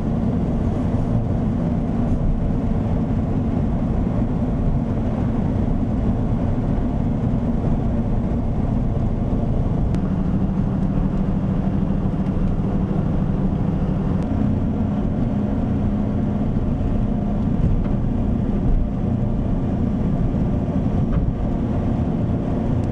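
A motor vehicle's engine and road noise while driving, a steady low rumble whose engine note rises in steps about ten and fourteen seconds in.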